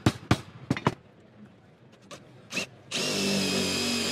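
The last few sharp hammer blows on a carbide-tipped drill bit held against steel like a center punch. About three seconds in, a cordless drill starts and runs steadily with a whine, drilling into the steel.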